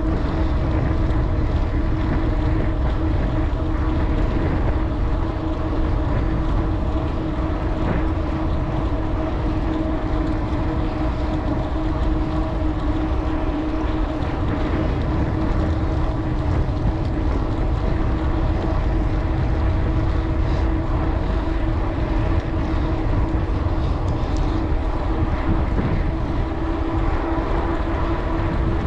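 Wind buffeting the microphone of a camera on a bicycle ridden steadily along asphalt at about 16 mph, with a steady hum beneath the rush.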